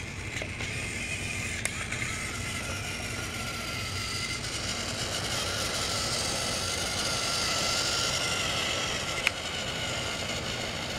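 Motor of a battery-powered Trackmaster Sir Handel toy engine whirring steadily, its wheels rattling along plastic track. It grows louder toward the middle as the train passes close. Two sharp clicks sound, one near the start and one near the end.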